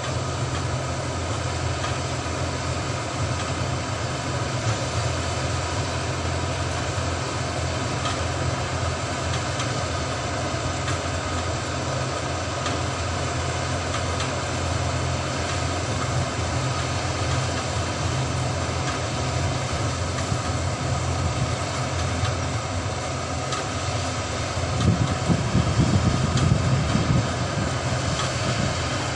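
New Holland combine harvester running while harvesting rice: steady diesel engine and threshing machinery noise, with a louder low rumble for a couple of seconds near the end.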